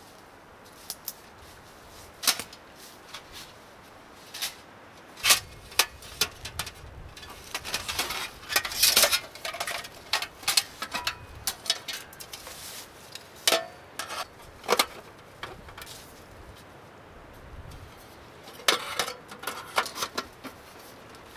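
Irregular clatter of hard objects being handled: scattered sharp knocks and clinks, busiest in the middle, then a short pause before a last flurry.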